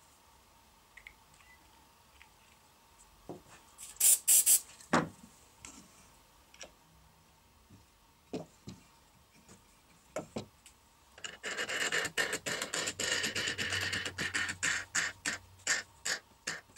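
Small metal clicks and taps as nuts and washers are handled on a threaded steel rod, with a short cluster of louder sharp clicks about four seconds in. From about eleven seconds in, a fast rattling scrape for about five seconds as a wing nut is spun along the threaded rod.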